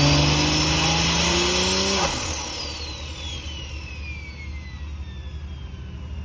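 Big-single-turbo BMW M3 Competition inline-six revving up with a rising turbo whistle. About two seconds in the throttle snaps shut: the engine note drops away, the turbo flutters, and its whine falls slowly in pitch as it spins down.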